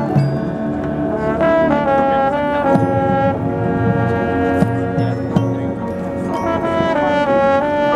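High school marching band playing: the brass section holds sustained chords that shift in pitch a couple of times, with light percussion hits.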